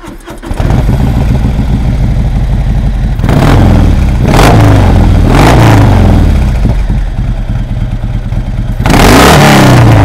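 Harley-Davidson Softail Deluxe's V-twin running loud through fishtail exhaust pipes, revved in several throttle blips, with the strongest rev near the end.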